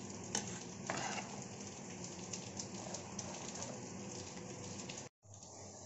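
Milk with grated bottle gourd and sugar boiling hard in a steel kadhai on high flame, being cooked down: a steady bubbling hiss. A steel ladle stirs through it and clinks against the pan a couple of times in the first second. The sound drops out briefly about five seconds in.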